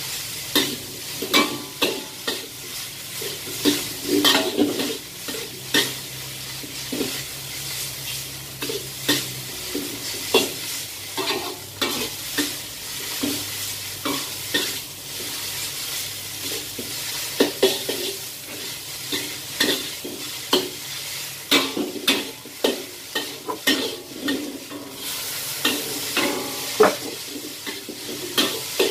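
Noodles stir-frying in a wok over a gas burner: a steady sizzle, with a metal spatula scraping and clanking against the wok several times every few seconds as the noodles are tossed.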